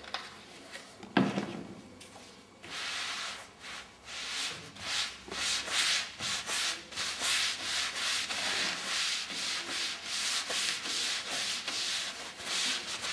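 Fleece wax-spreader pad rubbed back and forth over a flat panel, spreading a liquid pore-sealing primer in repeated hissy strokes, roughly two a second. There is a single knock about a second in, before the rubbing starts.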